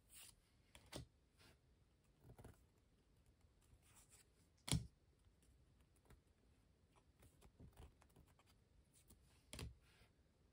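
Trading cards and their packaging being handled: a few faint, scattered taps and rustles, with one louder tap about halfway through.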